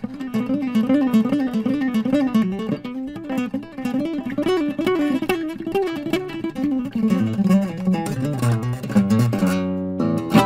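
EKO MIA 018 CW acoustic guitar played legato: fast hammer-on and pull-off runs with notes weaving up and down. It closes near the end on a chord left ringing.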